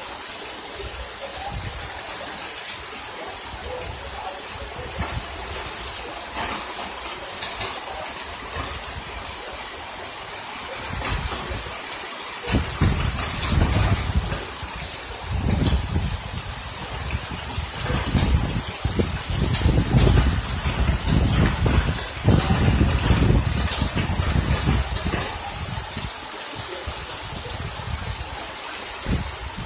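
Heavy rain pouring steadily in a storm. From about twelve seconds in until near the end, deep irregular rumbling surges sit under the rain.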